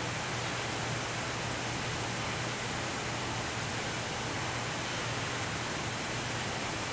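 Steady hiss of a row of flat-fan spray nozzles spraying water onto a spray pattern distribution table, with a low steady hum underneath.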